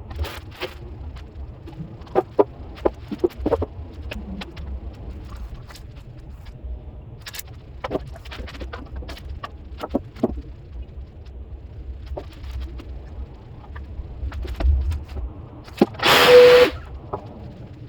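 Scattered knocks and clicks of wood and hand tools being handled at a workbench over a low room rumble. A loud hissing burst lasting about a second comes near the end.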